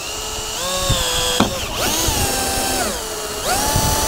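Electric drill with a small bit boring a pilot hole through a caravan roof. The motor whine comes in three runs, rising in pitch as it speeds up, holding, then falling as it slows.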